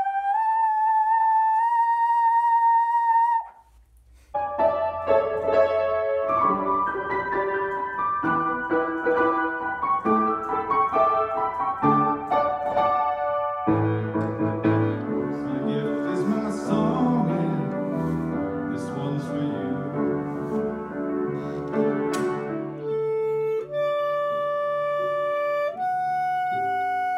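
Solo instruments in turn: a trombone holds a note that steps up slightly in pitch and stops, then after a brief gap a grand piano plays a run of notes, fuller and lower from about halfway. Near the end a clarinet plays long held notes.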